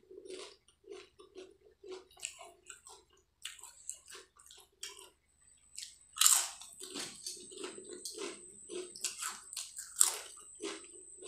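Close-miked crunching and chewing of fried potato chips: many short crisp crunches, with louder bites about six and ten seconds in.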